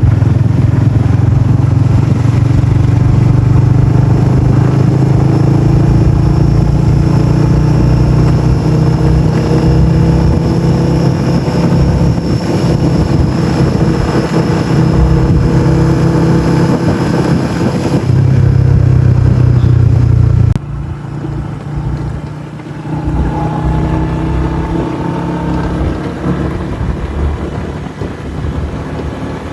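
Riding a motorbike in traffic: the bike's engine under a steady, loud rush of wind and road noise. The noise drops abruptly to a quieter level about twenty seconds in.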